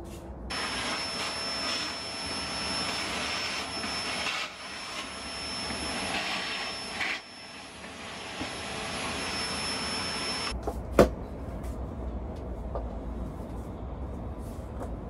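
Vacuum cleaner running steadily with a high-pitched whine, switching on just after the start and cutting off about ten seconds in. A single sharp knock follows a moment later, then the quieter sound of a floor mop.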